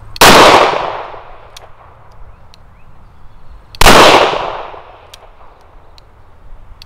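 Two shots from a Smith & Wesson Governor revolver firing 250-grain lead .45 Long Colt Cowboy Action loads, about three and a half seconds apart. Each is a sharp report followed by a tail that fades over about a second.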